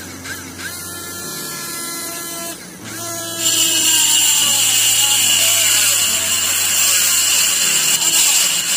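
Small DC motor of a homemade mini cutter whining as it spins a thin cutting disc. About three and a half seconds in, the disc bites into a white plastic pipe and a much louder, steady high grinding hiss takes over until near the end.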